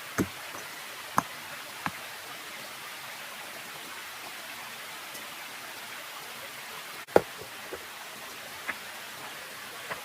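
A few sharp knocks at uneven intervals, the loudest about seven seconds in, over a steady hiss.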